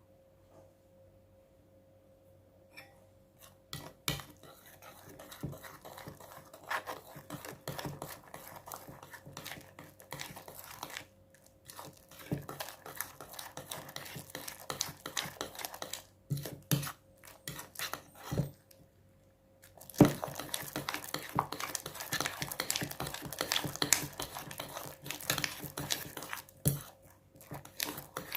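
A utensil scraping and clicking against a bowl while stirring clear glue and borax into slime. It starts a few seconds in, breaks off briefly a little past halfway, and comes back louder.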